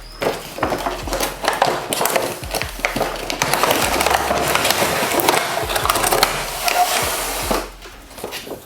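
Cardboard packaging of a toy rifle being opened and handled: a run of clicks, scrapes and rustling, thickest in the middle stretch.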